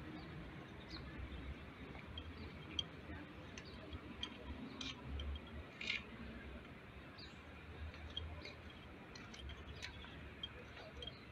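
Faint outdoor background: a low rumble that swells a little now and then, with scattered short, high chirps or clicks.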